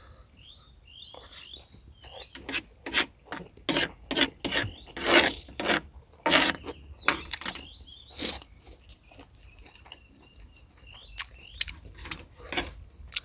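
Eating noises up close: a string of short, irregular rasping chewing and scraping sounds, busiest in the first half, over a steady high-pitched insect trill.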